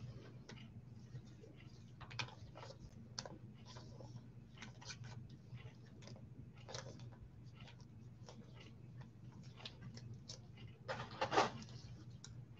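Scattered light clicks and taps from small objects being handled, with a brief louder rustle about 11 seconds in, over a faint steady low hum.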